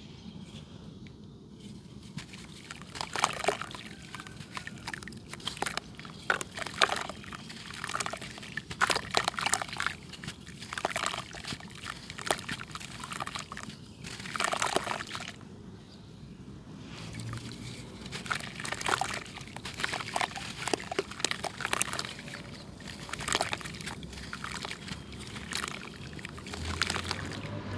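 Chunks of red dirt clay crumbling and crunching, with many irregular crackles and crisp breaks of uneven loudness.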